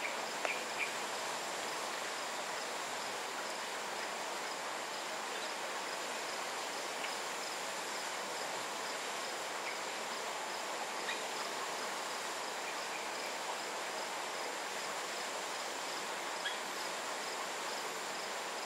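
Tropical forest ambience: insects keep up a steady high-pitched drone and a regular pulsing trill over a constant background hiss, with a few brief faint chirps scattered through.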